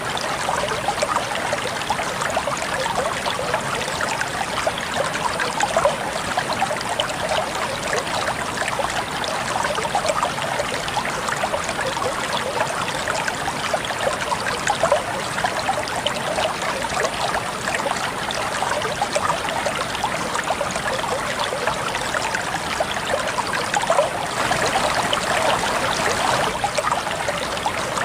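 Water flowing and splashing steadily in a small stream, with dense, bubbling trickles.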